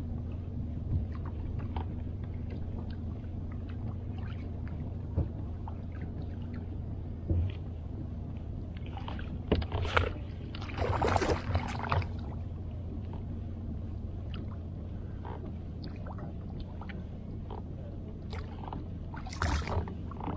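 A hooked salmon splashing and thrashing at the surface beside a kayak as it is brought to the net, in a burst about ten seconds in and again near the end, over a steady low hum and light ticking.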